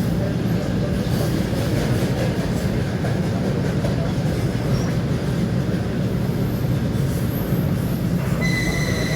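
Train running along the rails: a steady low rumble of wheels and carriage. Near the end a high, steady squeal of wheels on rail joins in.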